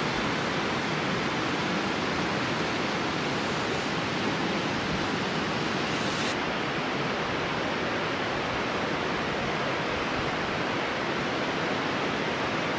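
Water of a stream rushing steadily, an even hiss with no let-up.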